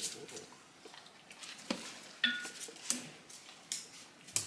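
Dogs taking meat scraps on a tile kitchen floor: a few scattered light clicks and taps, with a brief high squeak about two seconds in.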